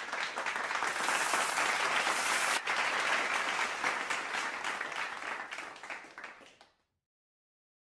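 Audience applause, many hands clapping together, fading out near the end.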